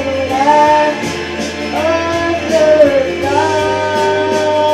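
A boy singing a pop song into a handheld microphone over an instrumental accompaniment. His voice holds long notes that slide in pitch, the last one held for over a second near the end.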